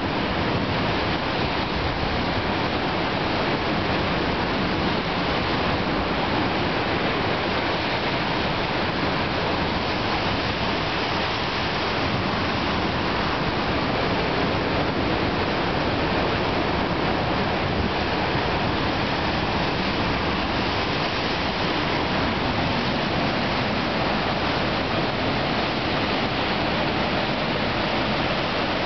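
Rough sea surf churning and breaking against rocks: a continuous, steady rush of white water with no let-up and no single wave standing out.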